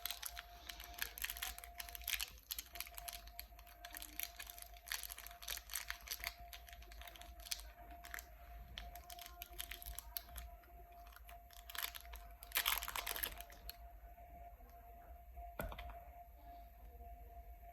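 Chocolate bar wrappers being torn open and crinkled: a dense run of crackles from the plastic packaging, with one loud rip about three-quarters of the way through, then quieter rustling near the end.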